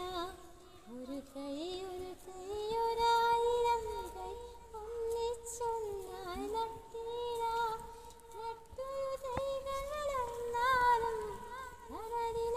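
A young woman singing solo in a high voice, with long held notes that glide from one pitch to the next and waver slightly, pausing briefly between phrases.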